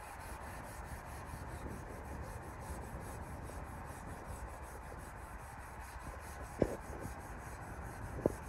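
Wet sandpaper rubbed by hand back and forth over the lower door panel of a Suzuki Alto, a steady scraping, with two short knocks near the end.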